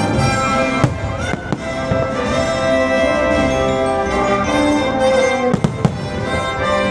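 Orchestral show music with brass playing sustained chords, broken by a few sharp firework bangs about a second in and twice more near the end.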